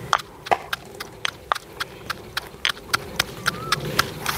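A steady run of sharp clicks or knocks, about three a second.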